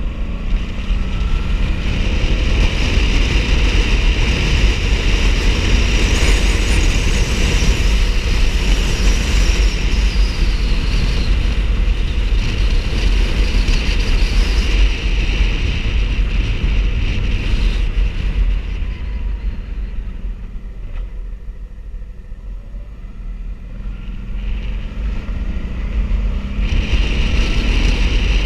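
Motorcycle riding along a road: engine running under heavy wind buffeting on the microphone. The sound eases off for several seconds about two-thirds of the way through, with the engine note rising again, then returns to full strength near the end.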